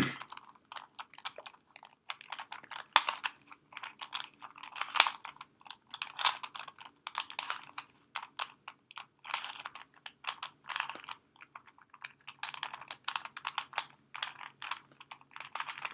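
Plastic Rubik's cube being turned quickly by hand: rapid, irregular clicking and clacking of the layers, in clusters with short pauses between them.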